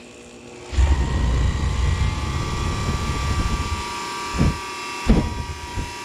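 Liquid-fuel burner of a tilting-hearth melting furnace starting up: about a second in, a loud, steady rumble with a whine sets in as the burner fires, and a couple of low thumps follow near the end.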